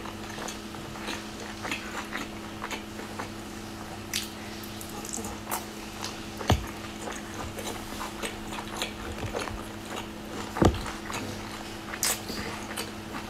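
Close-miked mouth sounds of someone biting and chewing soft steamed dumplings: many small wet clicks and smacks, with a louder thump twice, over a steady low hum.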